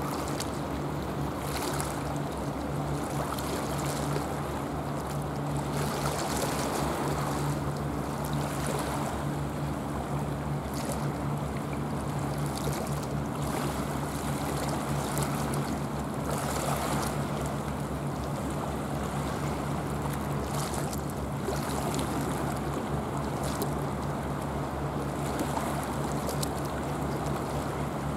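Seaside water ambience with a steady low hum underneath: choppy sea water washing and lapping, with some wind on the microphone.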